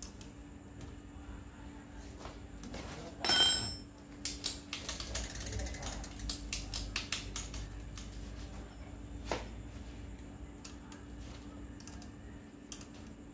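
Bicycle rear hub's freehub pawls ratcheting as the wheel or cranks are turned on a repair stand: a rapid run of clicks that thins out. A single short ringing clink comes just before it, about three seconds in.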